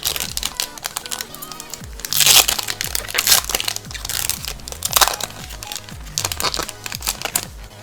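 Foil Pokémon booster pack wrapper crinkling and crackling as it is handled and opened, with louder crackles about 2, 3 and 5 seconds in, over background electronic music.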